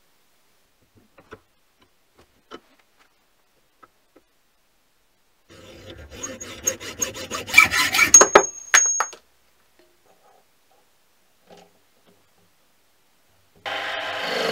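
Hand hacksaw cutting a steel rod clamped in a bench vise: a run of quick, rasping strokes about halfway through, the last ones the loudest, with a brief high metallic ring. About a second before the end, a mini lathe starts running steadily.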